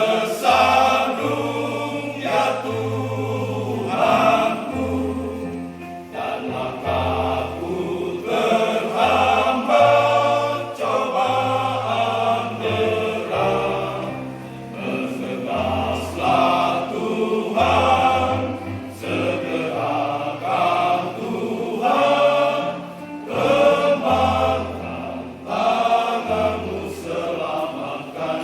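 A church choir singing, over sustained low bass notes that change step by step every second or two.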